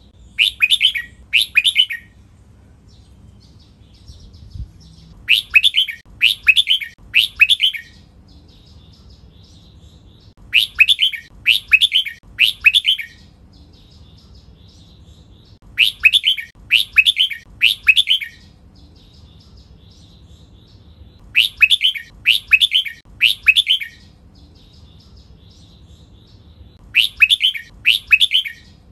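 Red-whiskered bulbul singing: loud, clear phrases in bursts of three notes (two in the first burst), each burst coming about every five and a half seconds, with soft twittering between the bursts.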